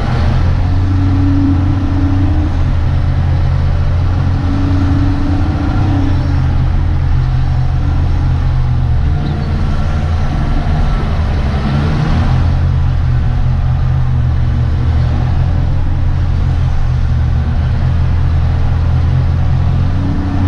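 Caterpillar 615C elevator scraper's diesel engine running steadily, heard from inside the cab. A higher hum swells and fades a few times over the steady drone.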